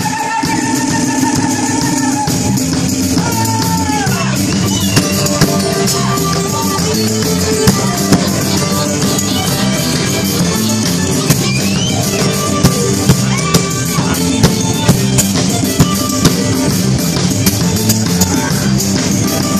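Live band music: an acoustic guitar strummed over a drum kit playing a steady beat, with frequent sharp drum hits.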